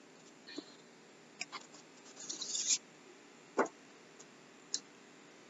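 Faint handling noises from a book being picked up and moved: a few light taps and clicks, with one short paper rustle a little past the middle.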